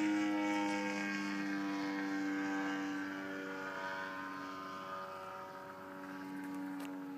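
Engine and propeller of a Sukhoi aerobatic plane in flight: a steady, buzzing drone with a slight downward drift in pitch that fades as the plane moves away.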